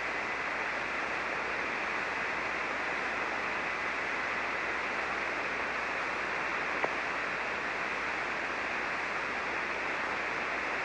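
Steady hiss of band noise from a ham receiver tuned to single sideband on 40 metres, with no station transmitting. A faint steady whistle sits in the noise and fades out over the first few seconds, and a single short click comes about seven seconds in.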